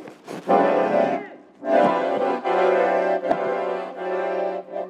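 Old piano accordion playing held chords in two bursts, a short one about half a second in and a longer one from about two seconds in. The players call the accordion old and broken.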